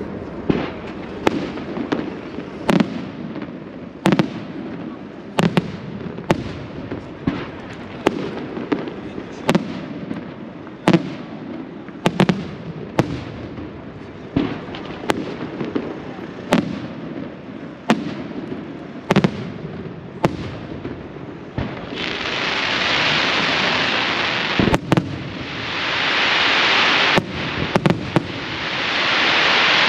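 Aerial firework shells bursting in a rapid run of sharp bangs, about one a second. About two-thirds of the way through this gives way to three long swells of dense crackling hiss, with a few more bangs among them.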